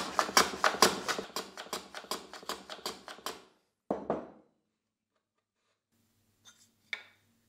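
Hand plane run on its side along a shooting board, shaving the end of a walnut piece: a quick run of short strokes, about four a second, that dies away after about three seconds. One more stroke follows about four seconds in, then a few faint clicks near the end.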